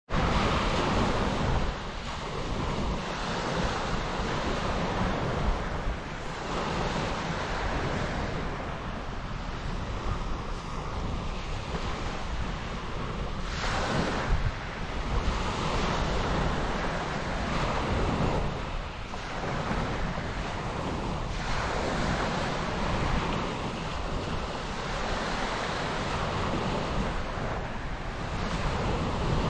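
Small waves breaking and washing up a shingle beach, swelling every few seconds as each one comes in, with wind on the microphone.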